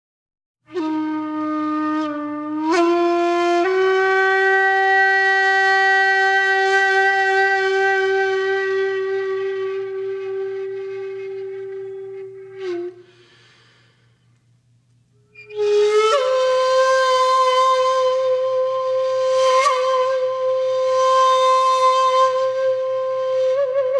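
Background music: a flute-like wind instrument playing long held notes. The first note steps up twice and is held until it fades about halfway through; after a short pause a higher note comes in and is held, wavering with vibrato near the end.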